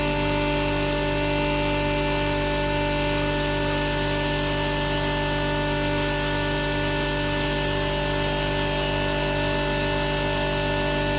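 7.5 hp stoneless flour mill (maize grinder) running steadily under its electric motor, a constant mechanical hum with several steady whining tones.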